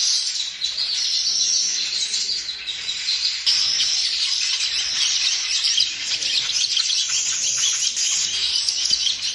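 A flock of weaver birds chattering: a dense, continuous mass of rapid high chirps and buzzy trills from many birds at once.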